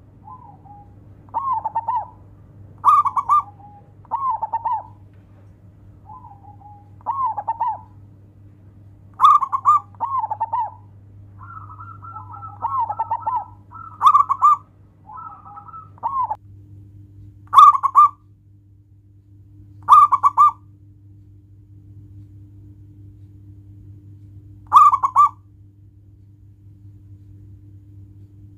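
Zebra doves (perkutut) cooing: short rippling coo phrases about a second long, repeated every one to three seconds, with loud phrases and fainter ones overlapping around the middle, falling quiet near the end. A steady low hum lies underneath.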